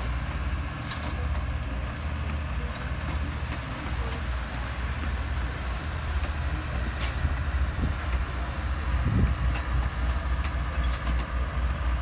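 Passenger coaches of a steam excursion train rolling past: a steady low rumble of wheels on rail with a few faint clicks, pulsing a little more strongly near the end.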